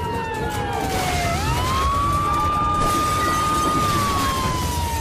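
Siren wailing over a noisy background. Its tone falls slowly, sweeps quickly back up about a second and a half in, holds, and begins to fall again near the end.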